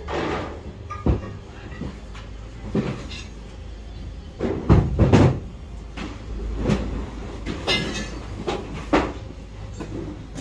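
Irregular clanks and knocks of scrap metal being handled and set down, with the loudest cluster of bangs about halfway through.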